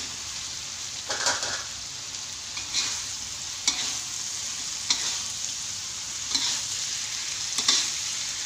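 Fried tofu pieces being stirred through sizzling sambal chili paste in a wok with a metal spatula: a steady sizzle, with the spatula scraping and knocking against the wok about once every second or so.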